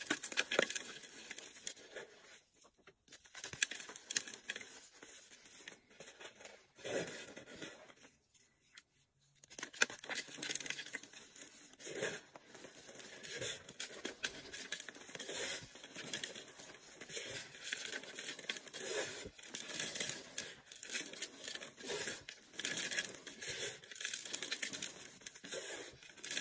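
Bars of gym chalk and kinetic sand crushed and crumbled by hand: dry, crackly crunching and crumbling in irregular squeezes, with a short pause about eight seconds in.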